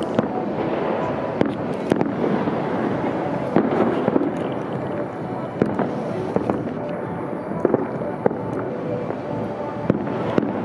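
Fireworks display: a steady din of many shells bursting at once, with sharp bangs standing out every second or so.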